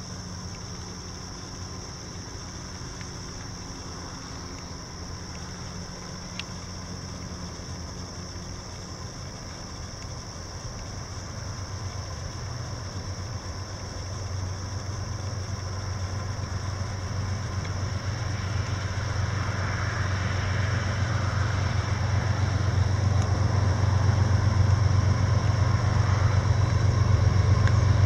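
Diesel-electric freight locomotives led by a GE ES44AH approaching: a low engine rumble that grows steadily louder through the second half as the train nears.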